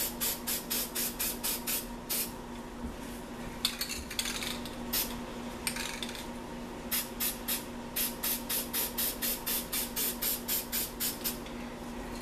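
Aerosol spray-paint can spraying white paint in quick short bursts, about four or five a second, with a couple of longer sprays in the middle. The spraying stops about a second before the end.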